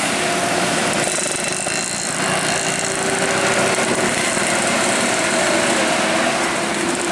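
A large bus passing close by: loud, steady engine and road noise.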